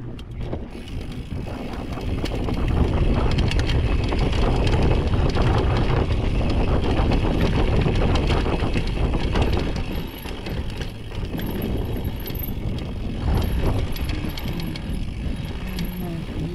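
Downhill mountain bike descending a dry, rocky dirt trail: tyres rolling and crunching over loose dirt and stones, the bike clattering and rattling over the bumps, over a steady low rumble. It gets louder about two seconds in as the bike picks up speed.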